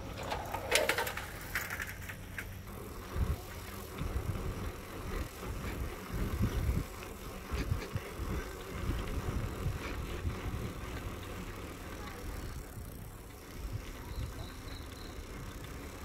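Bicycle rolling along a paved path, with gusty wind rumble on the microphone and birds calling now and then.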